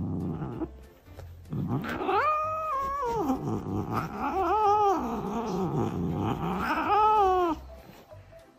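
Tabby cat yowling: a low growl at the start, then three long drawn-out yowls, each rising and falling in pitch.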